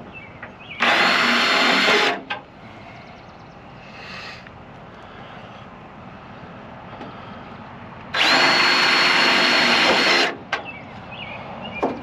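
Power drill driving screws to fasten downspout straps, running in two bursts: one about a second long near the start and one about two seconds long in the second half. Light knocks and clicks come between them.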